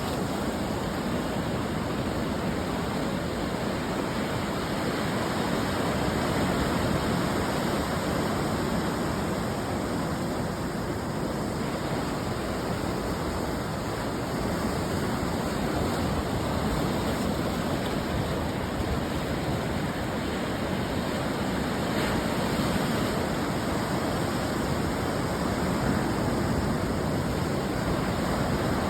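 Ocean surf breaking and washing on the shore: a steady rush of noise that swells gently in loudness every few seconds.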